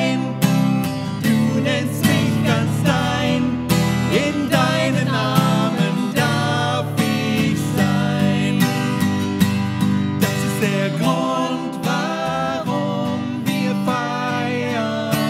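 A man and a woman singing a song together to a strummed acoustic guitar.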